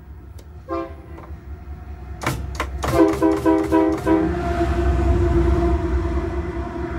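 Air horn of GE AC44i diesel locomotives: a short toot, then a rapid run of short blasts about two seconds in, then a long held note. Underneath, the rumble of the locomotives grows louder.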